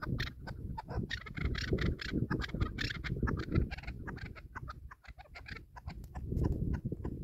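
Chukar partridge calling in rapid runs of short, sharp notes, over a low fluctuating rumble of wind on the microphone.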